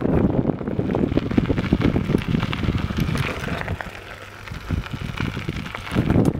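Wind buffeting the microphone of a moving bicycle, mixed with crackling and rattling from the tyres rolling over a dirt trail. It dips quieter for a moment about four seconds in.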